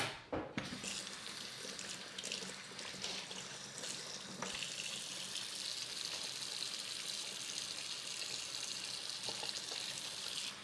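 Kitchen tap running steadily into a sink, the stream getting fuller and brighter about four and a half seconds in, after a knock at the start.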